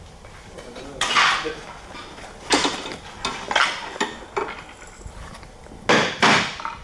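Roofing slates clinking and scraping against each other as they are handled, with several hard, sharp knocks; the loudest come about a second in and near the end.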